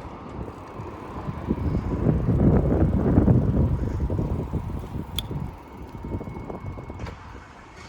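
Wind buffeting the microphone while riding a bicycle, a rough rumble that swells about two to four seconds in and then eases off, with a single sharp click about five seconds in.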